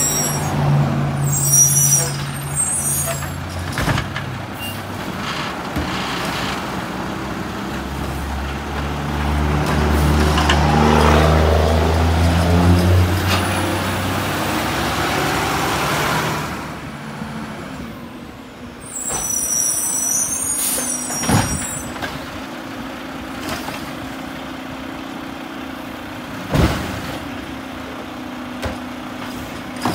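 Mack LR garbage truck with a Heil automated side-loader body working a curbside pickup: the engine rises in pitch and load about a third of the way in and settles, air hisses about two-thirds in, and two sharp clunks come from the lifting arm and cart near the end.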